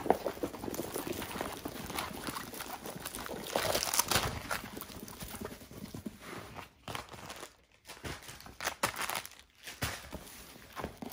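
Paper and plastic rustling and crinkling as a rolled diamond-painting canvas and plastic-wrapped bundles of drills are handled and set down, loudest about four seconds in.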